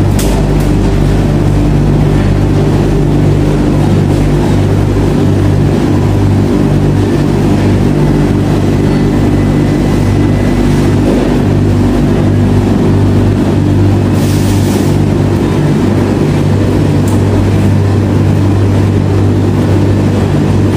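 Bank of Speed Queen stacked commercial dryers running, a steady hum of blower motors and tumbling drums, with a brief hiss about two-thirds through.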